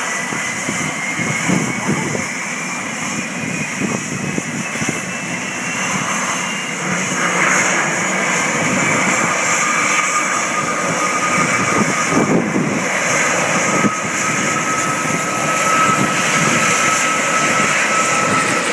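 Twin turboshaft engines of a US Coast Guard MH-60 Jayhawk helicopter running on the ground before take-off. Their high whine climbs in pitch over the first several seconds, then holds steady.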